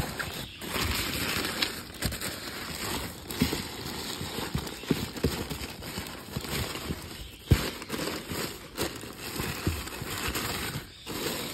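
Crinkly wrapping rustling and crackling as hands fold and smooth it around a bundle in a cardboard box, with scattered small knocks against the box and one sharper knock about halfway through.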